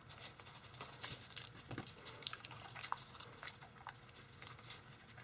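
Faint, scattered crinkles and ticks of tissue foil (tissue paper bonded to kitchen foil) as fingers tuck a small point into inside reverse folds.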